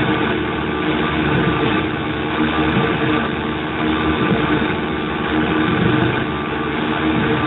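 Nova Drone analog synthesizer playing a steady, dense drone of many held tones over a grainy noise, its oscillators and filters pattern-sequenced by a Raspberry Pi.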